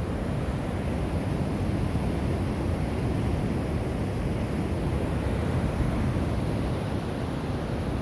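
Steady rushing of floodwater pouring through a dam area after heavy rain, a constant roar with no breaks.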